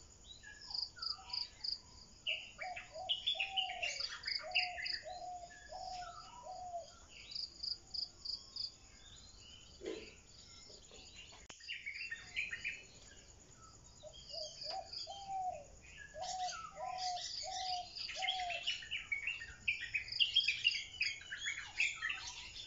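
Birds calling over chirping insects: a regular pulsing chirp high up, two runs of short repeated lower whistled notes, and scattered higher bird chirps.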